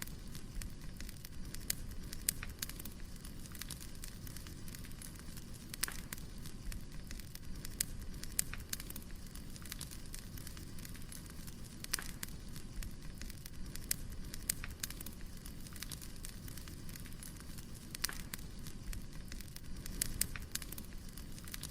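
Wood fire burning: a steady low rush with irregular sharp crackles and pops from the burning logs, some coming in little clusters.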